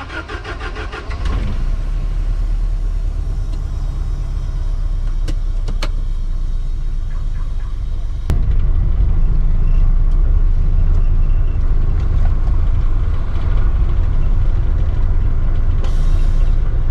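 Land Rover 110 engine being cranked and catching about a second in, then running steadily, heard from inside the cab. About halfway through there is a click and the engine gets louder as the vehicle reverses out.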